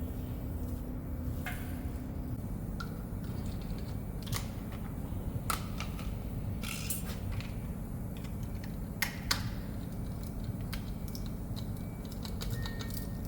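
Scattered light clicks and taps, a few sharper ones, over a steady low hum.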